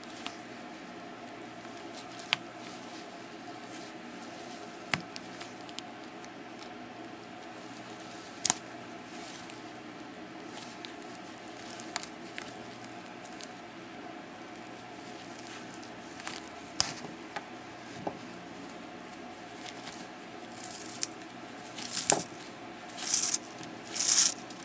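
Scattered sharp clicks and knocks of hand tools and small metal parts as a slide projector is dismantled for scrap, over a steady low hum. A few short rustling bursts come near the end.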